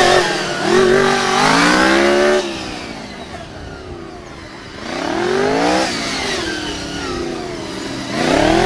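Sport motorcycle engine revving hard in short bursts as the bike is flicked around cones. It rises in pitch three times, about a second in, at about five seconds and near the end, dropping back to a lower running sound in between.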